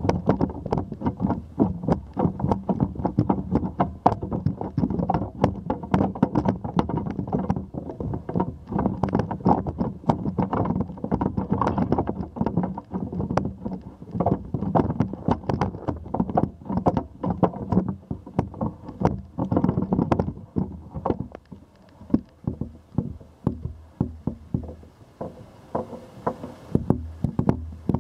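Handling noise from a camera held up on a long telescoping pole: a dense run of irregular knocks and rattles over a low rumble, thinning out for a few seconds about three-quarters of the way through.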